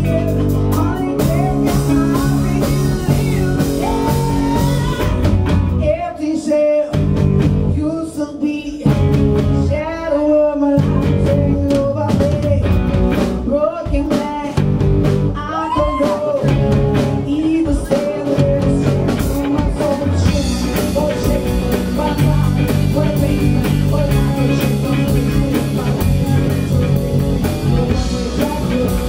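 A live band playing: a woman singing over two electric guitars and a drum kit. About six to eleven seconds in, the band stops short a few times while the singing carries on.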